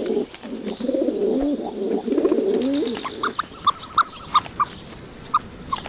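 Pigeons cooing in low, warbling phrases for about three seconds, then an abrupt change to a series of short, high pips at irregular intervals.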